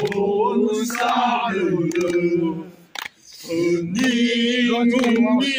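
A group of voices chanting a song together in long held notes, breaking off briefly about halfway through and then starting up again, with a few sharp claps.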